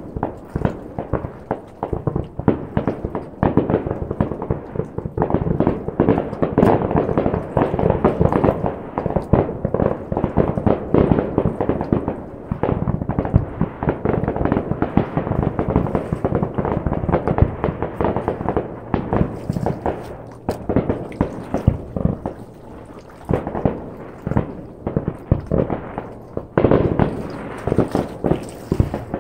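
Fireworks going off in a dense barrage of bangs, several a second, with a short lull about three-quarters of the way through.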